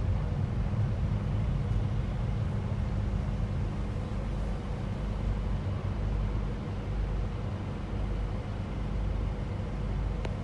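Steady low engine and road rumble heard inside a moving vehicle's cabin, with a faint steady hum over it.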